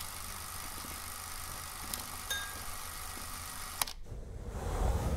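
Old-film sound effect: a steady film hiss with a few scattered clicks, cut off by a sharp click about four seconds in. After it a low rumble swells near the end.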